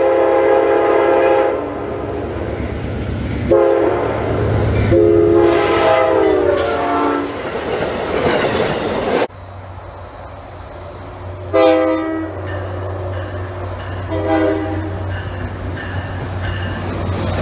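Locomotive multi-chime air horn sounding a chord in several blasts, the last long one sliding down in pitch as the train passes, followed by the rush of passing rail cars. After a sudden cut about nine seconds in, another train horn gives three shorter blasts over a steady low engine rumble.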